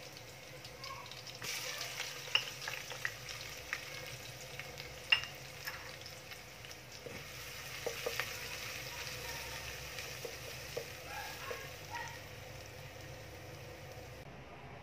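Chopped small onions sizzling in hot oil, starting about a second and a half in as they hit the pan, while a spoon stirs them and clinks sharply against the pot a dozen or so times.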